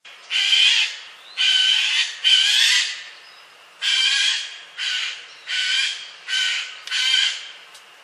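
Eurasian jay giving its classic harsh screeching alarm call: eight rough screeches, each about half a second long and roughly a second apart.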